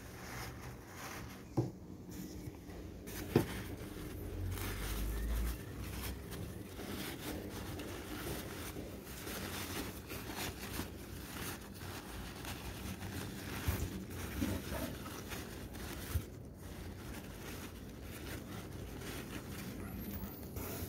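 Crumpled packing paper rustling and crinkling as a hand digs through a cardboard box, with a few sharp knocks and a brief low rumble about four seconds in.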